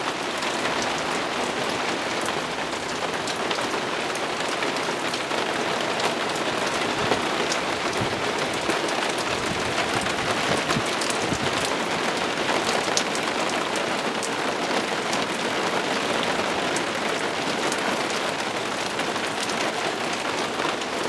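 Heavy downpour of rain falling and pattering on surfaces, a steady dense hiss with scattered drop ticks.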